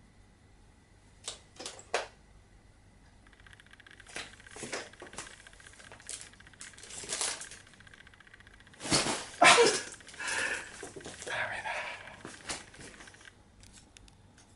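A cat pulling at a tablecloth: a few sharp clicks, then an irregular run of knocks, rustling and clattering that is loudest about nine to ten seconds in and dies away near the end.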